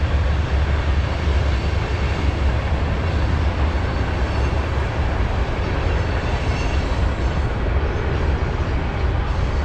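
Train passing close by with a loud, steady rumble and rail noise that does not let up.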